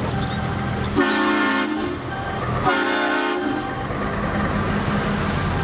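Two short blasts of a multi-tone air horn, about a second in and nearly three seconds in, over a steady low engine rumble.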